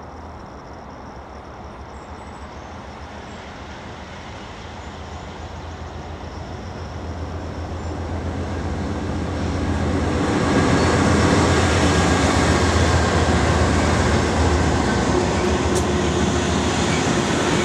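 BNSF freight train's diesel locomotives approaching and passing close by. Their low engine drone grows steadily louder over about ten seconds, then stays loud as the lead units go past and the freight cars begin rolling by. There is one sharp clank near the end.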